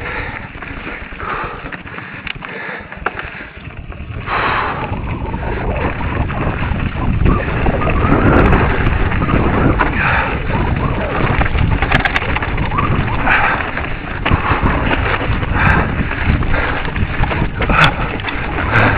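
Rumbling handling and wind noise on the microphone of a camera carried along a dirt trail, with scattered sharp clicks and knocks. It is quieter for the first few seconds and gets louder about four seconds in.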